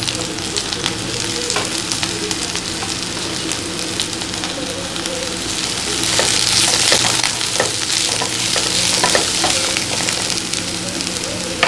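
Chopped cabbage, onion and green chilli sizzling in hot oil in a nonstick frying pan, stirred and scraped with a wooden spatula. The sizzle grows louder from about halfway through.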